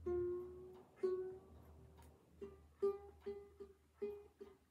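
A single ukulele string plucked over and over on the new Flight Designer Series Orchid concert ukulele while its tuner is turned, each pluck giving much the same note. Two longer-ringing plucks come first, then a run of six quicker ones from about halfway. The instrument is being brought up to pitch because its new strings are still stretching.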